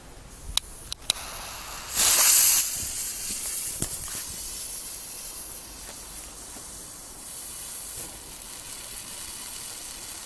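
Panda Lucky Star fountain firework: two sharp clicks, then about two seconds in it ignites with a loud burst of hiss that settles into a steady, fainter hiss as it burns.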